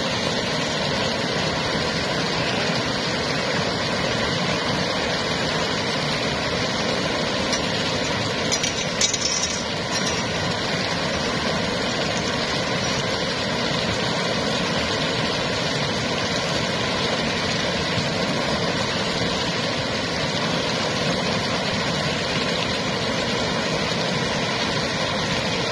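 Water pouring steadily over a concrete weir, a constant rush. A brief clatter of sharp clicks about nine seconds in.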